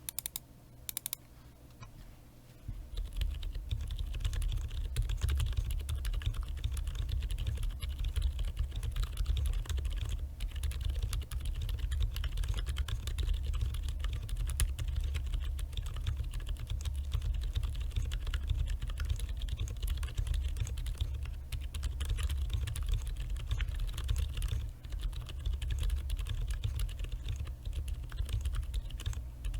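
Continuous typing on a mechanical keyboard with lubed Boba U4 62g silent tactile switches, acrylic plate and case, and PBT keycaps: a few separate keystrokes at first, then a steady, fast run of muted keystrokes from about two and a half seconds in, with a heavy low thump under the key sounds.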